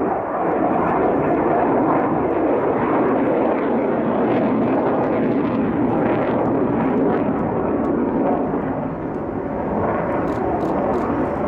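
Jet engine noise from a Sukhoi T-50 (PAK-FA) prototype fighter in flight: a loud, steady rumbling rush from its twin AL-41F1 afterburning turbofans as it manoeuvres overhead.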